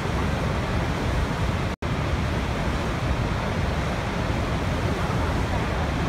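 Steady roar of water rushing over a waterfall, heaviest in the low range, with a split-second dropout just under two seconds in.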